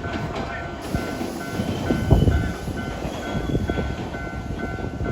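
Level-crossing warning bell ringing steadily at about two dings a second, over the rumble and clatter of a Keisei train running through the crossing.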